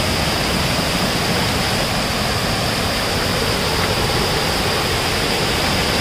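Rushing water of a waterfall cascading over rock ledges: a loud, steady rush with no letup.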